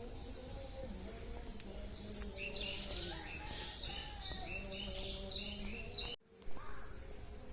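A bird chirping a quick series of bright, repeated notes for a few seconds, over a low, steady hum.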